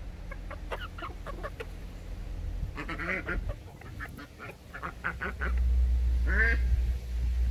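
A flock of chickens clucking close by in many short calls, with two longer calls that bend in pitch, about three and six seconds in. A steady low rumble comes in a little past halfway and is the loudest sound from then on.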